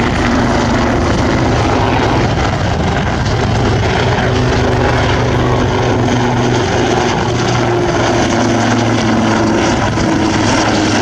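AgustaWestland AW159 Wildcat helicopter in flight: its main rotor and twin CTS800 turboshaft engines give a loud, steady drone, with a low hum holding a few steady pitches.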